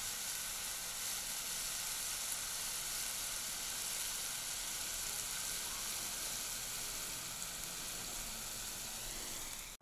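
Sliced onions and mushrooms sizzling steadily in butter and oil in a skillet over a charcoal grill, left to caramelize.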